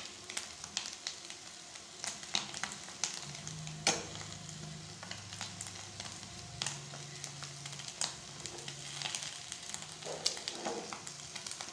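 Crumbled fish roe frying in oil in a nonstick kadai, sizzling steadily while a steel spoon stirs and scrapes through it, with frequent sharp clicks of the spoon against the pan.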